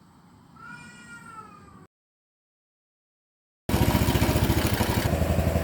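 A cat meows once, a slightly falling call. After about two seconds of dead silence, a Honda Super Cub 110's air-cooled single-cylinder four-stroke engine is heard running loudly with a steady, rapid pulsing beat, the abnormal engine noise that the owner suspects is piston slap or cam chain noise.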